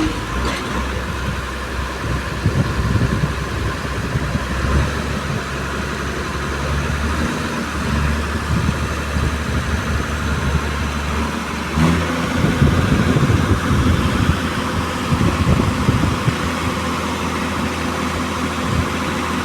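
Excavator's diesel engine running steadily. About twelve seconds in there is a click, and after it the engine runs a little louder.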